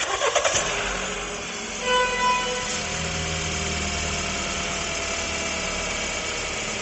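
Jeep Renegade engine started and settling into a steady idle with the accessory drive belt removed; the front-end noise is gone, showing it comes from a belt-driven part, which turns out to be the water pump pulley with play in it. A short tone sounds twice about two seconds in.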